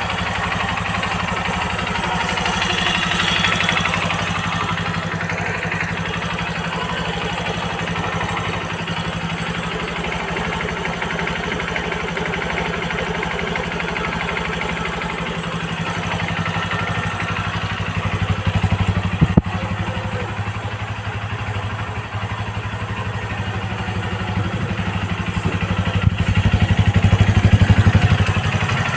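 Honda CRF150L's single-cylinder four-stroke engine running on its stock exhaust, mostly at a steady idle. It gets louder briefly about two-thirds of the way through and again near the end, with one sharp click in between.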